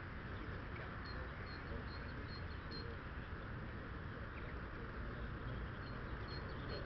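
Steady outdoor rumble, like wind on the microphone, with a small bird's short high chirps repeating in little clusters.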